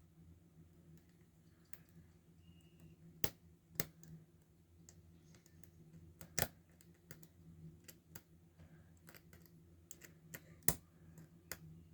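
Faint, scattered sharp clicks and taps of lock picks and a tension wrench working a Paclock 90A Pro padlock, with a few louder clicks a few seconds apart, over a low steady hum.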